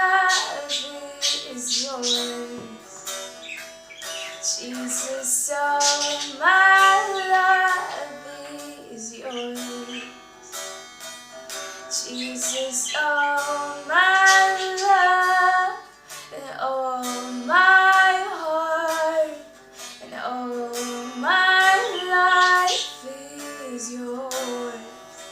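A high voice singing a slow melody in long held phrases, with plucked guitar accompaniment.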